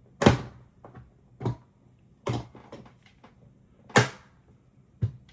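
Irregular sharp clicks and knocks of tools and metal trigger parts being handled on a workbench, about seven in all, the loudest near the start and about four seconds in.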